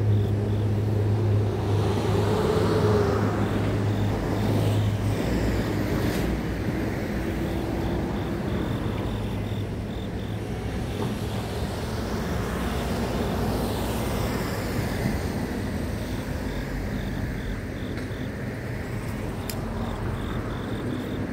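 Road traffic going by, with engine hum that rises and falls as vehicles pass and a steady low drone that stops about five seconds in. Beneath it, grass insects chirp in a faint, high, evenly pulsing rhythm.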